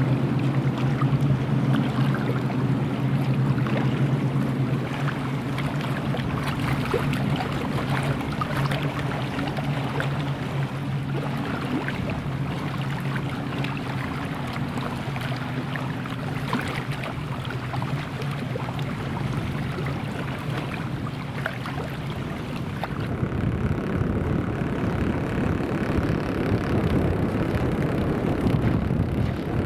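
Turboprop engines of several Air Tractor AT-802 Fire Boss water-scooping air tankers droning as they skim the lake and climb away. The steady hum fades slowly over the first twenty seconds or so, then a rougher rumble swells near the end.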